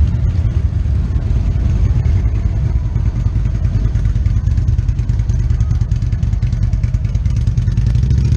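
Motorcycle engine running at a steady idle, a loud, low, even pulsing.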